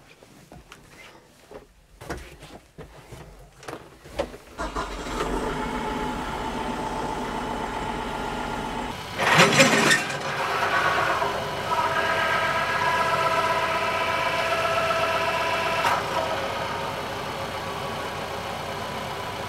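Knocks and clicks of climbing into a tractor cab, then the TYM T754 tractor's diesel engine starts about four seconds in and runs steadily. Near the middle comes a sudden loud burst, then a rising whine that settles into a steady whine with several tones as the Lane Shark front-mount brush cutter's hydraulically driven blades spin up, with a slight drop in level near the end.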